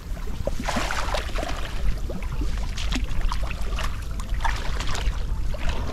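Irregular sloshing and splashing of water as people wade through a shallow pond, over a constant low wind rumble on the microphone.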